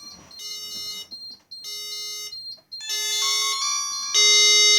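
Fire alarm sounders in evacuation: a multi-tone alarm pulsing on and off about once a second, set off from a manual pull station, with the last pulse longer and louder near the end.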